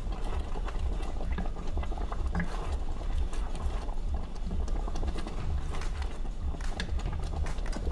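Cornstarch-thickened sweet and sour sauce bubbling in a pot while a wooden spoon stirs it, with irregular clicks and scrapes from the spoon over a low rumble.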